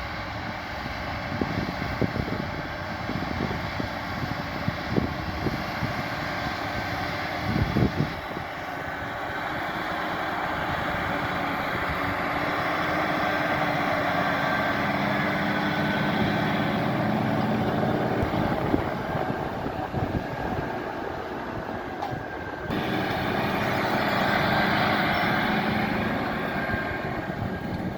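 Massey Ferguson 7718S tractor engine running steadily under ploughing load, growing louder through the middle as it comes nearer, with an abrupt jump in the sound about 23 seconds in.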